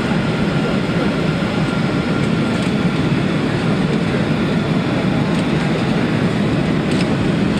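Steady roar of a Boeing 737 cabin heard from a window seat on approach: engine noise and the rush of air past the fuselage. A faint high whine is also there and fades out a couple of seconds in.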